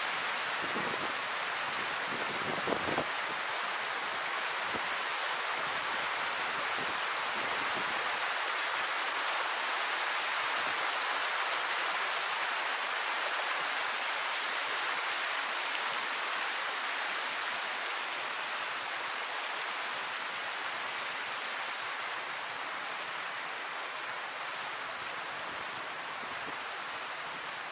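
River water pouring steadily over the edge of a submerged concrete low-water crossing, an unbroken rushing sound. A couple of small knocks come just under three seconds in.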